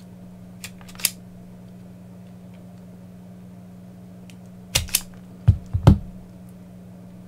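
Self-adjusting wire stripper clicking as it clamps and strips insulation off a battery lead: two sharp clicks about a second in and a louder run of clicks near five seconds in, then a few heavier knocks as the tool is set down on a silicone mat. A low steady hum runs underneath.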